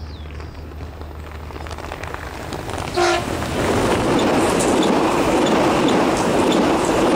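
Alstom X'Trapolis Modular electric train approaching and passing close by, sounding one short horn blast about three seconds in. The horn gives way to loud rushing wheel and rail noise with regular clicks from the wheels over the track.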